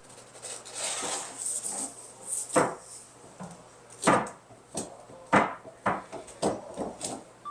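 Scraping and rustling, then a run of sharp, irregular knocks and clunks on wood, about one every half-second to second, from hands-on renovation work.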